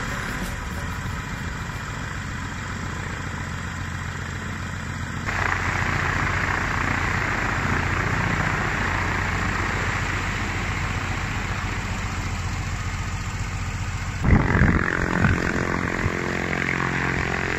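Aircraft piston engine with a DUC Cobra constant-speed propeller running steadily on the ground, during a ground test run. It gets louder and brighter about five seconds in, and near the end there are a few loud, low bursts like wind buffeting.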